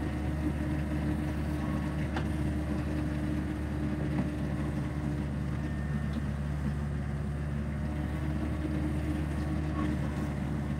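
Caterpillar 307C mini excavator's diesel engine running steadily while the machine digs with its bucket in the water, with a couple of faint knocks about two and four seconds in.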